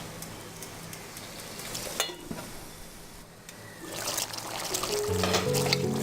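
Water being poured and trickling into a cooking pot, with one sharp knock about two seconds in. Background music comes back in near the end.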